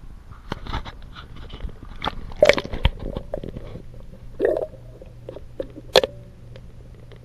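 Handling noise from an action camera in a waterproof housing as it is taken underwater: irregular clicks and knocks, the loudest about two and a half and six seconds in. A low steady hum comes in about four seconds in.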